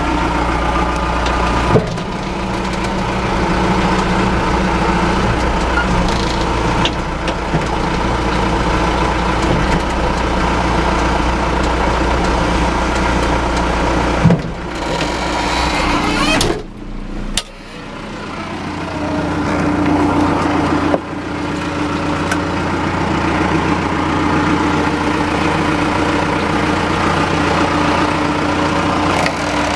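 John Deere 310SE backhoe's four-cylinder diesel engine running steadily. About halfway through the sound briefly drops away, then the engine runs on at a steady but different pitch.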